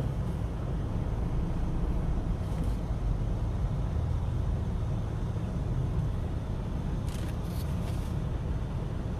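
Steady low rumble inside a Mitsubishi Pajero's cabin, the engine and road running under it in slow traffic, with a few faint clicks about seven seconds in.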